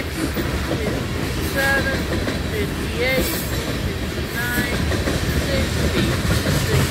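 Loaded coal hopper cars of a long freight train rolling past with a steady heavy rumble and clatter, broken by short high squeals every second or so.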